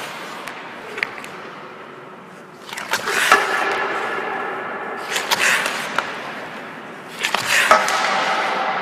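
Ice hockey pull-back (toe-drag) shots: light clicks of the stick dragging pucks on the ice, then three shots about two seconds apart. Each is a sharp crack followed by a long ringing echo in the empty rink.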